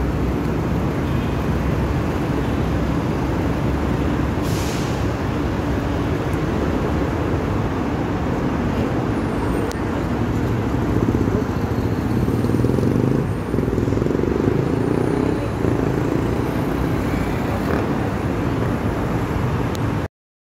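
Street traffic noise: a steady rumble of vehicle engines, with a brief hiss about four seconds in. It cuts off suddenly just before the end.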